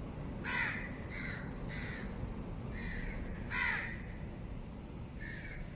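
A crow cawing, about six short harsh calls at uneven intervals, over a faint steady low hum.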